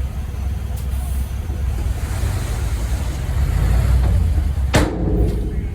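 Heavy diesel engine of earthmoving machinery running with a low rumble that grows louder past the middle, and a single sharp knock with a short ringing tail near the end.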